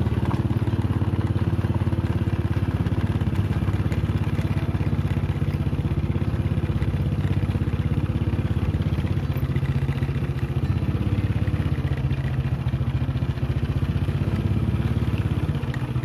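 Small petrol engine running steadily at one constant speed, with a fast even pulse.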